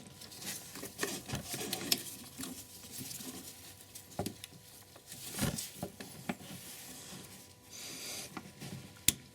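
Light scraping, rustling and small knocks of parts being handled and fitted by hand in a car's engine bay, with a few sharper clicks.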